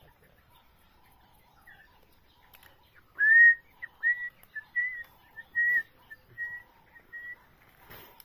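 A run of about ten clear whistled notes at one high pitch, starting about three seconds in. The first note is the loudest and slides up into the pitch, and the rest are short notes in quick succession.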